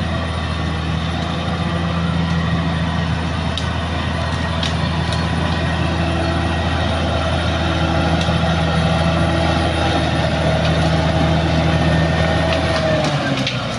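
Caterpillar D6R XL bulldozer's diesel engine running steadily, with a few light clicks over it. Near the end the engine note drops.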